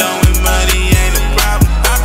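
Hip-hop track playing: a long, deep 808 bass under a kick drum that drops in pitch, striking roughly every 0.7 seconds, with melodic layers above.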